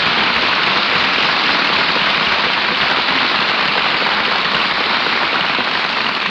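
Studio audience applauding steadily, a dense even clatter of many hands, heard on an old radio broadcast recording.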